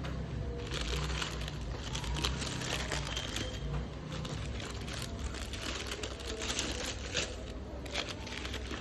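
Paper packaging crinkling and rustling as it is handled during an unboxing, in irregular crackly bursts over a steady low hum.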